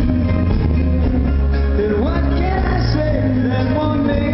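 Live band performing a pop-rock song: voices singing over keyboards, guitars, drums and a steady bass line, heard through the concert hall's PA.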